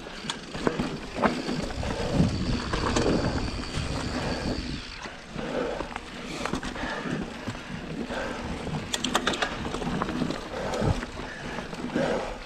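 Mountain bike being ridden over rough trail: tyre noise on dirt with a stream of irregular knocks and rattles from the bike as it goes over bumps, and a quick cluster of sharp clicks about nine seconds in.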